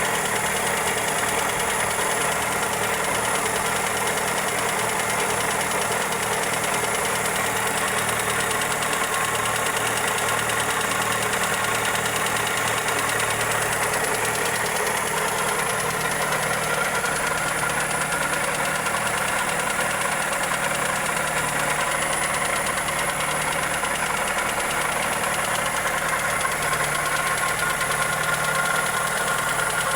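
Toyota 2E four-cylinder engine idling steadily with a rapid ticking knock, which the uploader links to the valvetrain or a connecting rod.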